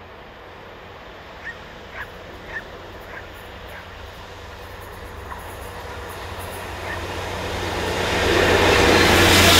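GBRf Class 73 electro-diesel locomotive hauling a rail head treatment train, approaching and growing steadily louder, then passing close by from about eight seconds in. A steady low hum runs under it, and a rising hiss from the wheels and the train's rail-cleaning water jets builds as it draws level.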